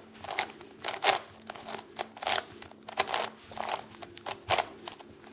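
Plastic layers of a 7x7 bandaged puzzle cube being turned by hand: a quick, irregular run of short clicks and scrapes, two or three a second.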